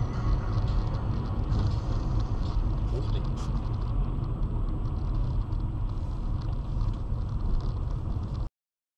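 Steady low rumble of a car's engine and tyres heard from inside the cabin while driving on a city road, cutting off abruptly about eight and a half seconds in.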